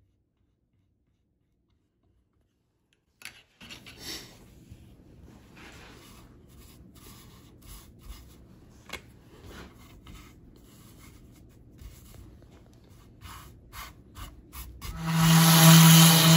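Silent for about three seconds, then hands rub and scrape sawdust into wet glue around a wooden bowtie inlay, soft and uneven with small clicks and taps. Near the end a random orbit sander starts on the pine board, much louder, with a steady hum and hiss.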